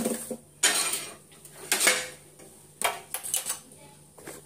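Kitchen pots and utensils clattering and clinking in several separate bursts, as they are handled and set down.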